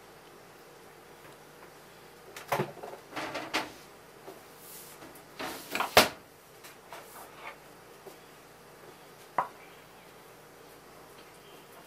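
Ceramic tableware knocking and clattering on a wooden table: a cluster of knocks a couple of seconds in, the loudest single knock at about six seconds, and one sharp click near the end as a small ceramic cup is set down.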